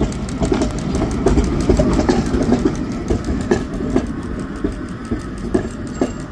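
TWTeam (KOS) EVO 2 low-floor tram passing close by, its running gear rumbling and its wheels knocking over the rail joints and points in an irregular run of sharp clacks. The sound eases off near the end as it moves away.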